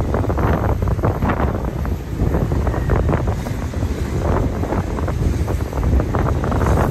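Wind buffeting the microphone on a moving motorcycle: a loud, uneven, gusting rumble.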